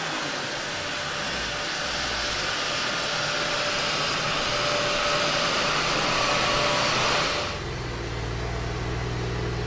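Steady rushing hiss, like air from a large fan, growing slightly louder, that cuts off abruptly about seven and a half seconds in. A low, even engine hum then takes over: the Porsche 992 Turbo S idling on the dyno.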